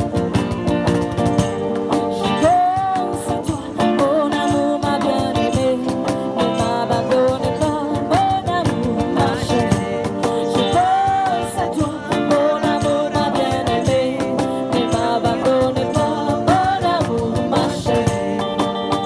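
Live acoustic street band playing: strummed acoustic guitars over a steady cajón beat, with a voice singing a melody from a couple of seconds in.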